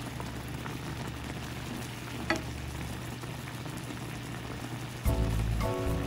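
Thick tteokbokki sauce simmering in a pan, a steady bubbling sizzle, with one sharp click about two seconds in. Music comes in about five seconds in.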